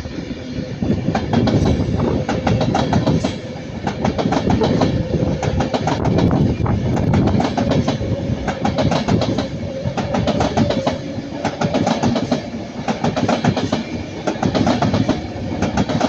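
Class 390 Pendolino electric passenger train passing close by, its wheels clicking rapidly and steadily over the rail joints, with a faint steady hum underneath.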